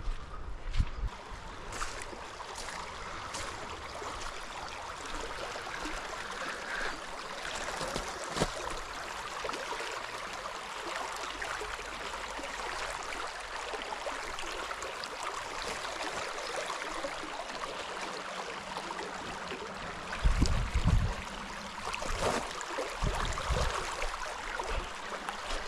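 Small seasonal stream flowing, a steady rush of running water. Wind buffets the microphone a few times near the end.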